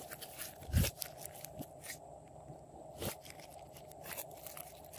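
Glossy slime squeezed and kneaded by hand, giving scattered wet clicks and small pops, with a louder pop a little under a second in and another about three seconds in.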